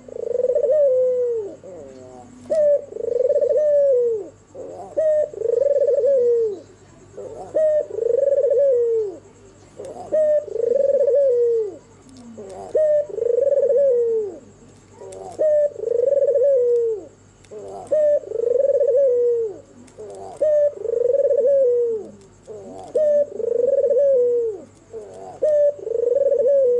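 Albino (white, red-eyed) Barbary dove cooing over and over. Each coo is a short note followed by a longer rolling call, repeated about every two and a half seconds.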